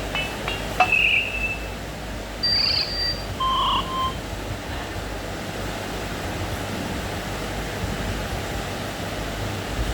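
A few short, sparse electronic beeps from a Nokia 2760 mobile phone's speaker in the first four seconds, then steady hiss with a low hum.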